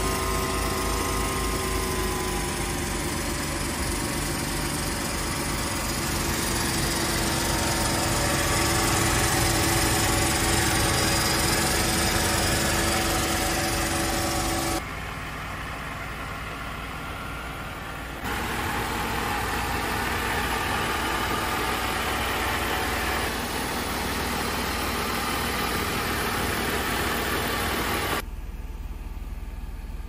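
Mercedes W124 E320's inline-six engine idling, with a steady whine from the electric air injection pump, whose bearing is noisy. The whine sags slightly in pitch over the first couple of seconds and cuts out about fifteen seconds in, leaving the engine idling.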